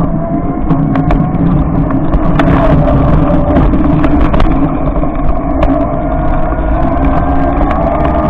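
Electric motor of a converted e-bike whining steadily, its pitch rising slowly as the bike pulls away onto the snowy street and gathers speed. Under it is a low rumble from riding over snow, with scattered sharp clicks.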